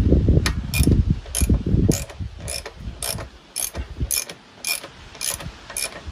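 Steady mechanical clicking, about two sharp clicks a second, with low rumbling handling noise under the first two seconds.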